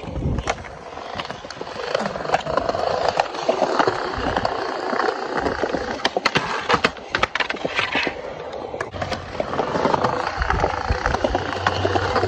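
Skateboard wheels rolling over concrete, with sharp clacks and knocks of boards scattered through, most of them clustered in the middle.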